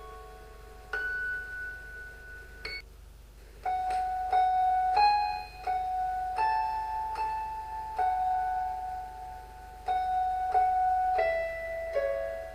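Slow background music on a piano-like keyboard: single notes sounded one after another and left to ring, with a short pause about three seconds in.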